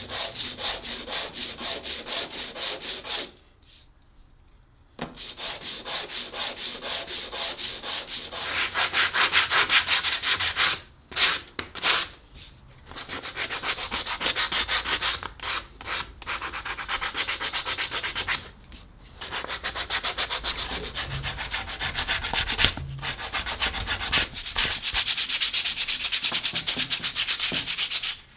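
Wooden handle of an old clothes iron being sanded by hand, quick back-and-forth strokes of sandpaper at about four a second. The strokes come in runs with short pauses between them.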